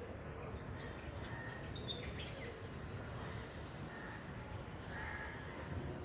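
Parrots squawking in a tree: short, harsh calls repeated irregularly about once a second over a steady low background rumble.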